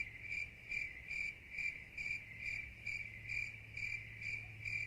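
A cricket chirping in a steady, even rhythm of about two chirps a second, over a faint low hum.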